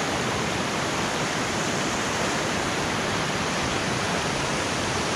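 Swift mountain river running over rocky rapids close by: a steady, even rush of white water, with the river in high flow.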